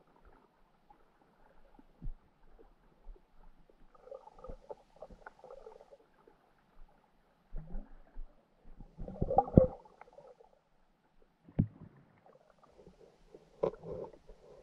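Muffled underwater sound through a GoPro's waterproof housing: a low watery rumble with scattered knocks and bumps on the housing, the loudest cluster about nine to ten seconds in.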